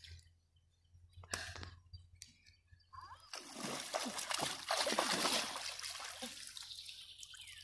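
Shallow river water splashing and sloshing as a person wades in and works a bamboo-framed hand net through it, starting about three seconds in and loudest around the middle.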